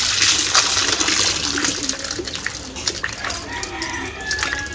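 Water gushing from a hand-pump spout and splashing over hands and slices of ash gourd in a bowl, easing off after about a second and a half. Then quieter splashing and small knocks as the pieces are rinsed in a steel plate.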